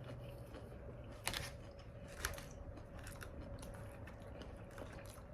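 Quiet chewing of food with a few soft clicks, two of them a little more distinct about a second and two seconds in.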